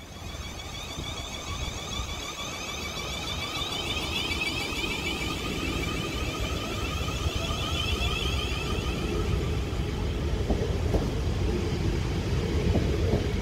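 Siemens Class 450 Desiro electric multiple unit pulling out, its traction motors whining as the carriages roll past. The whine fades after about nine seconds while the rumble of wheels on rail grows louder.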